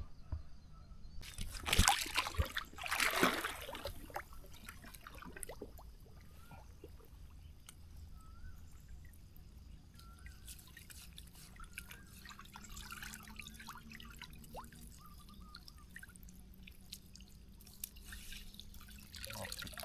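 Pond water splashing as a person wades in, then drips and trickles of water as a mesh shrimp trap is handled and lifted in the shallows. The splashes come about two and three seconds in and are the loudest part; after them the dripping is quieter.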